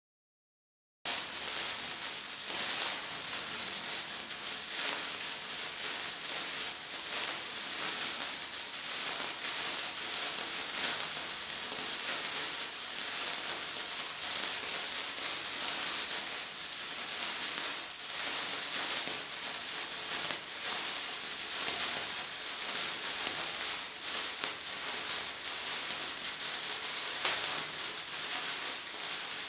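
Small Category 1 firework burning with a steady hissing crackle that cuts in abruptly about a second in and runs on evenly without bangs.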